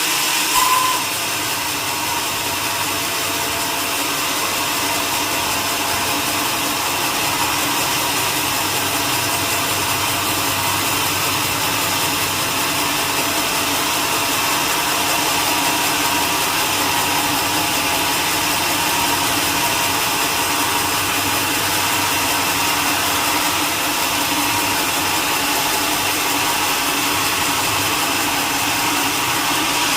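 Sawmill machinery running steadily with a constant mechanical drone and hum, with one brief louder sound under a second in.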